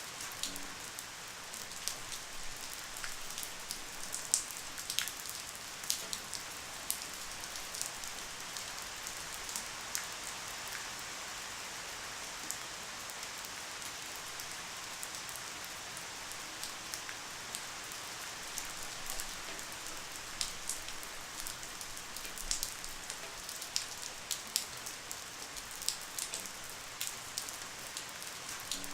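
Light, steady rain: an even hiss with many individual drops ticking sharply on a surface, scattered irregularly throughout.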